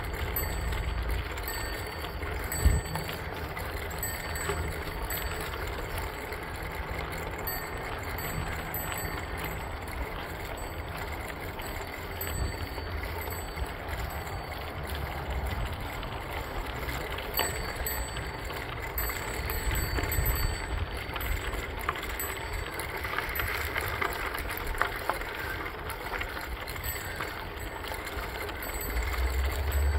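Bicycle tyres rolling over a gravel trail, a steady crunching hiss with low wind rumble on the microphone. A single sharp bump comes about two and a half seconds in, and the rumble grows louder near the end.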